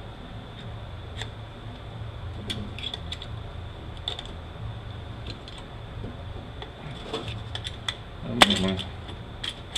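Light metal clinks and taps from the internal parts of an automatic transmission being handled during teardown, with a sharper clink about eight and a half seconds in, over a steady low hum.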